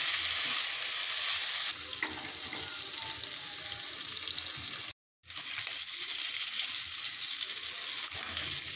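Peeled boiled eggs sizzling as they fry in hot oil with turmeric in a nonstick karahi, turned now and then with a spatula. The sizzle steps down in level about two seconds in and breaks off for a moment about five seconds in before resuming.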